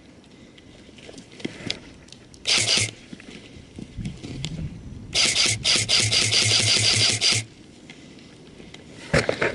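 Airsoft gun firing on full auto, a rapid string of shots with a mechanical buzz: a short burst about two and a half seconds in, then a longer burst of about two seconds.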